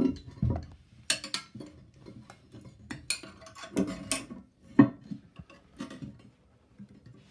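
Ceramic toilet tank lid clinking and knocking as it is lifted and set back down over a bidet sprayer holder: a handful of sharp, scattered knocks, loudest a little under five seconds in.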